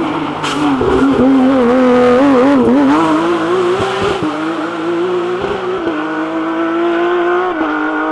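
Porsche 911 rally car's flat-six engine running hard through a bend, its pitch wavering up and down with the throttle, then settling to a steadier note with a couple of small steps in pitch as the car pulls away.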